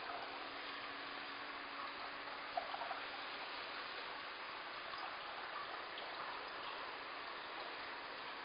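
Steady trickle and splash of an aquarium's circulating water over a low steady hum, with a few small clicks about two and a half seconds in.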